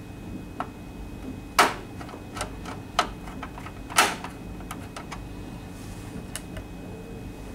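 Sharp clicks and knocks of a printer logic card being set into a dot matrix printer's plastic lower case and metal chassis, the loudest about a second and a half and four seconds in, with lighter clicks between.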